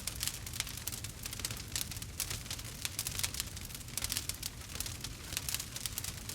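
Firewood burning in a campfire, crackling with many quick, irregular pops and snaps over a low rumble.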